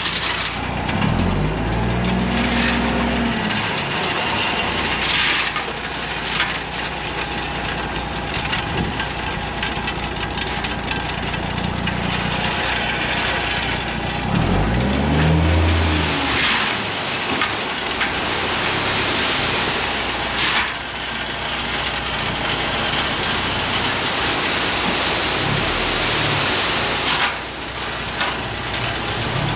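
Diesel dump truck engine revving up and back down twice to raise the bed, over a steady rushing hiss as the load of rock slides out, with a few knocks.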